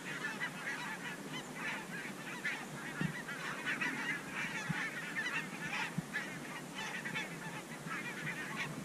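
A flock of wild geese calling in flight, a continuous chorus of many overlapping honks, fairly faint. The birds have just been flushed from their overnight roost.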